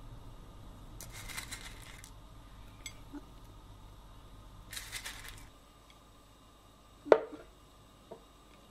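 Fingers crumbling crispy fried garlic bits over a plate of rice and gravy: two short crackly rustles. Near the end, a plate is set down on a table with one sharp knock.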